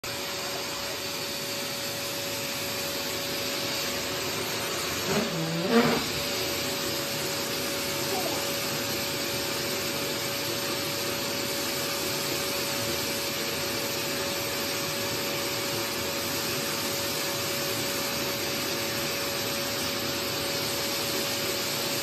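Vacuum cleaner running steadily with a constant whine as its hose nozzle is worked over fabric sofa upholstery. A short rising squeal comes about five seconds in.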